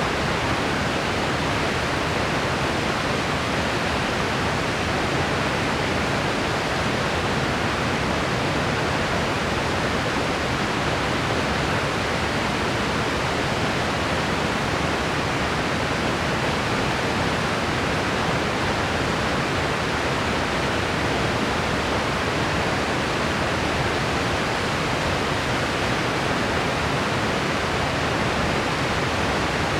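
Steady white noise, an even hiss with no change in level or pitch, played as a relaxation soundtrack.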